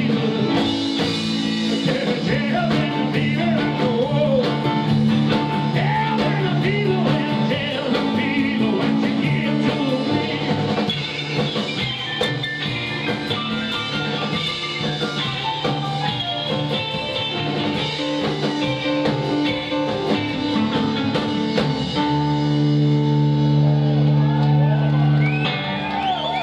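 Live rockabilly band playing: singing over hollow-body electric guitar, double bass, drums and piano, ending on a long held chord near the end.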